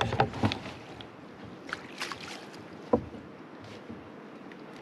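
Handling knocks in a kayak while a walleye is brought in over a landing net: a quick run of knocks and taps at the start, then a few scattered taps, the sharpest about three seconds in.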